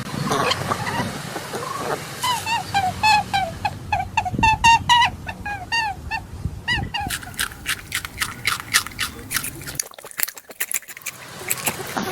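A quick run of short, repeated chirping animal calls, about three or four a second, then a rapid series of crisp clicks typical of a rabbit chewing.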